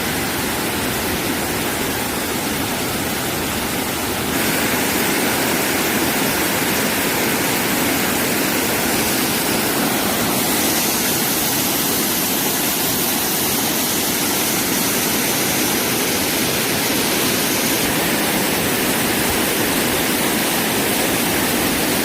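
Mountain stream water rushing, a loud, steady hiss. It gets a little louder about four seconds in and shifts slightly in tone twice more.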